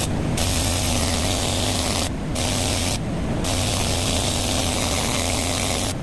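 Rotary power tool running against an EZGO TXT golf cart's aluminum front spindle, scouring off oxidation with a steady hissing scrub over the motor's hum. The scrubbing hiss breaks off briefly about two and three seconds in.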